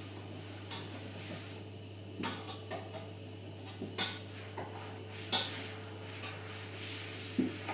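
Pans and utensils clinking and knocking on a kitchen hob and worktop: a string of separate sharp knocks, the loudest a little past five seconds in.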